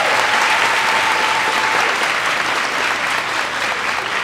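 Audience in a school auditorium applauding: many people clapping steadily at the end of a speech.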